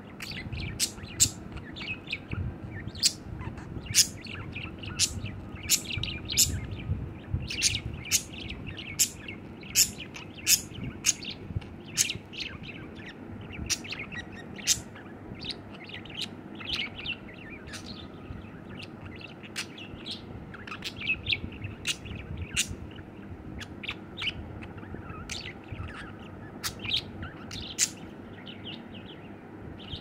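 Budgerigar chirping in a long run of short, sharp, high chirps, about two or three a second.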